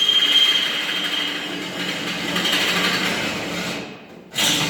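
Electric drill running under load, a bit boring into the steel truck frame, with a high whine at first; it stops briefly near the end and starts again.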